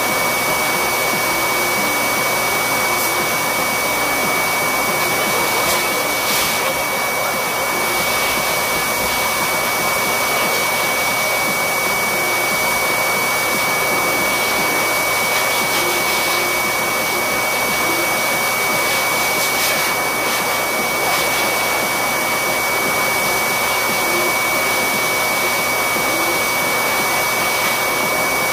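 Corded electric dog clippers running steadily with a constant high whine while trimming a Yorkshire terrier's coat.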